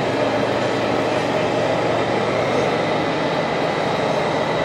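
Steady, continuous mechanical rumbling and rattling noise, with no pauses or sudden events.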